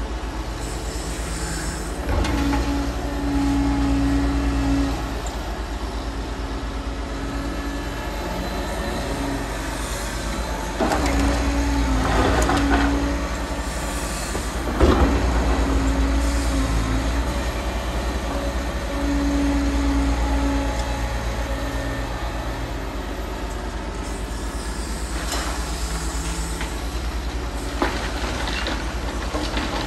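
Liebherr R940 Demolition excavator's diesel engine and hydraulics working under load, the engine note swelling in spells of a few seconds as it digs and swings. Bursts of scraping and clattering come as material is loaded, the sharpest a sudden bang about halfway through.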